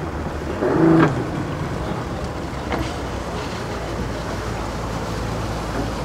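An engine idling with a steady low hum, and a short, louder pitched sound about a second in.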